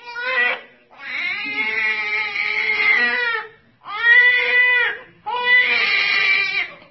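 Baby crying hard: four loud cries, each pitch rising and falling, with short breaks between them. The second cry is the longest, about two seconds.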